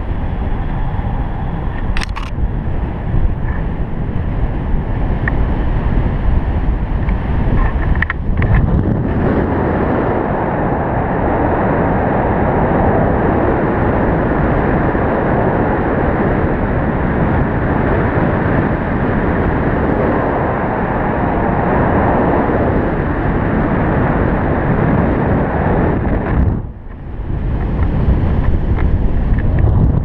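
Wind buffeting an action camera's microphone in paraglider flight: a steady loud rush, strongest in the low end. It drops away briefly a few seconds before the end.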